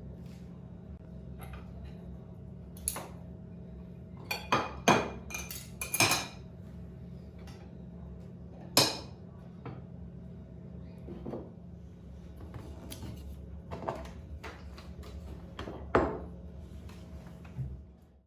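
Dishes and cutlery clinking and knocking as they are handled, a series of separate sharp clinks with the loudest cluster about five seconds in and single strong knocks later, over a steady low hum.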